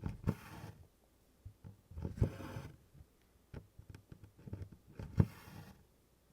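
DMC embroidery floss drawn through 24-count Congress cloth in tent stitch: three soft rasping swishes of thread pulled through the canvas, with small taps of the needle against the fabric between them.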